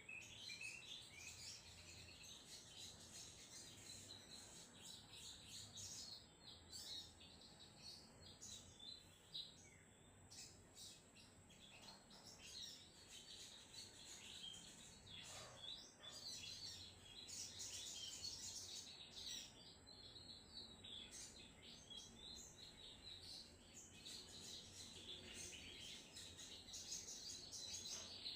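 A sogon songbird singing on and on in rapid, chattering bursts of high chirping notes, the fast staccato 'trotol' style of song that keepers prize. A faint steady high-pitched tone runs underneath.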